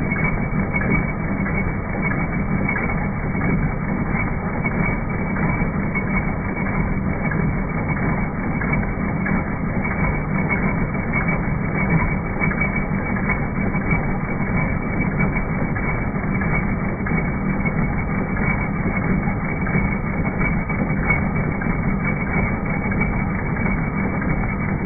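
Bestsew B-3620 15-needle embroidery machine running, stitching with a steady, rapid mechanical clatter.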